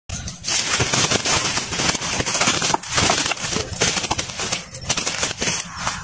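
Loud, continuous crackling and rustling noise made of many close irregular clicks, dipping briefly a few times.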